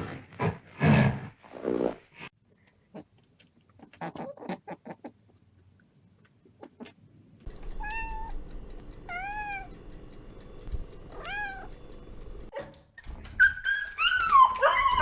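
A cat meowing: three short, high, rising-and-falling meows a second or two apart in the middle of the stretch. A few loud rough calls come in the first two seconds, and a long falling whine near the end.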